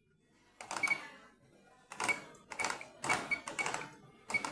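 Control panel of an Electrolux W555H professional washing machine: about six button presses at irregular intervals, each a short click with a brief high beep, as the display's language menu is scrolled.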